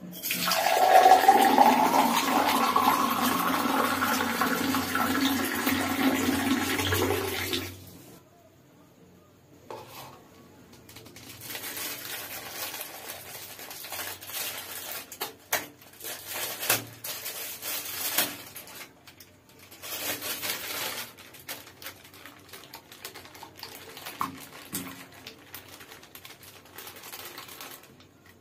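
Water poured from a height into a tall glass for about eight seconds, with a rising ring as the glass fills. After it stops, quieter crinkling and sharp clicks of a foil-lined takeaway packet being handled and untied.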